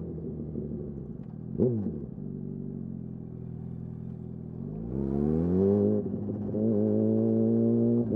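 2008 Yamaha R1's inline-four engine running on the road. A sharp, quick rev spike comes about one and a half seconds in. Around five seconds in the revs climb under acceleration, dip briefly, and then hold steady and louder.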